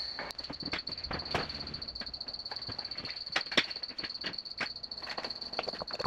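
Scattered light knocks and clicks of an aluminium T-slot roof rack being shifted into place on a vehicle roof and of steps on and off a stepladder, over a steady high-pitched whine.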